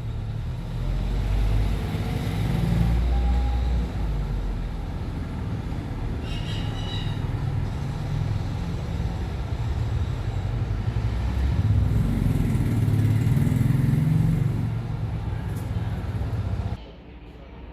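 A loud, steady low rumble that cuts off suddenly near the end, with a short high-pitched call about six seconds in.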